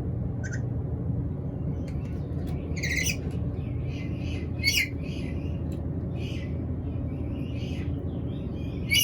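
Black-capped lory giving a string of short, high, harsh calls and chirps, as the bird does when hungry, the loudest about halfway through and at the very end, over a steady low rumble of background noise.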